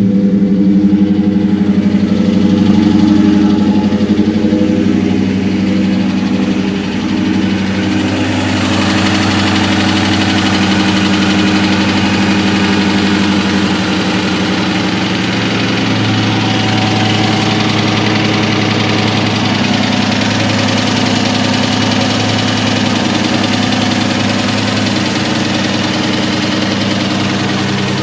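2003 Mustang SVT Cobra's supercharged 4.6-litre V8 idling steadily, with the slap of badly scored pistons. About eight seconds in the sound turns brighter and noisier and stays that way.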